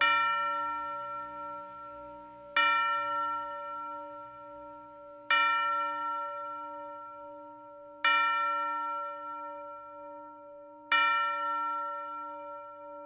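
A single bell struck five times, a stroke about every two and a half to three seconds, each ringing out and fading before the next.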